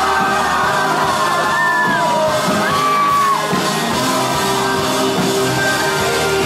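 Live pop-rock band playing in a large hall, with a singer and guitar, heard from among the crowd. High screams from fans glide over the music in the middle.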